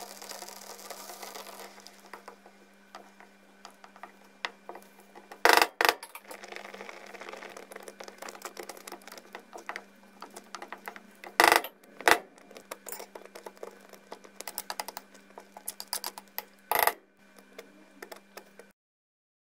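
Cooking at the hob: milk hissing and frothing in a glass pot at first. Then a few sharp clinks and knocks against the glass cookware and lighter ticking as oat flakes are tipped in and stirred, all over a steady low hum.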